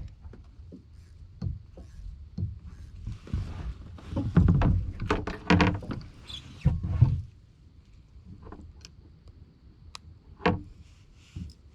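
Scattered knocks and clunks against a kayak hull, busiest a few seconds in, with a few sharp clicks near the end.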